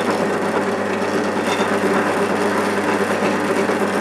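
Bench drill press running steadily, its bit boring the tang hole into a wooden knife-handle block.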